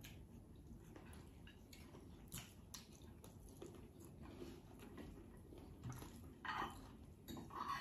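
Faint chewing and small mouth sounds of people eating, with scattered soft clicks and two brief louder sounds near the end.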